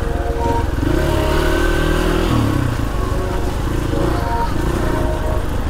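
Trail motorcycle engine running under throttle, its pitch rising and falling a few times as the rider works through the mud.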